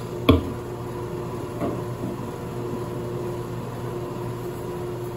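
A steady machine hum runs throughout. One sharp knock, the loudest sound, comes just after the start, and a lighter knock follows near two seconds in.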